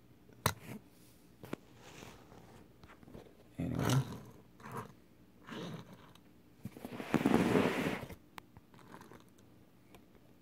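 Handling sounds of a die-cast toy car being moved on a fabric mat: a couple of sharp clicks, then several scraping, rustling bursts, the longest and loudest about seven seconds in.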